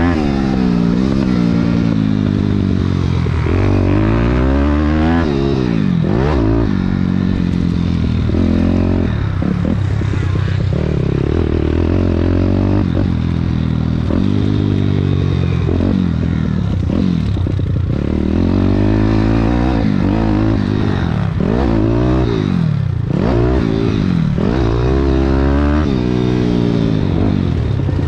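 Thumpstar 190 pit bike's single-cylinder four-stroke engine under hard riding, the revs rising and falling over and over as the throttle is worked and the gears are shifted.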